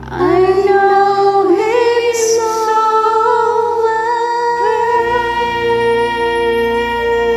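Two women singing a slow ballad duet, holding long sustained notes with a few changes of pitch, over a soft steady backing track.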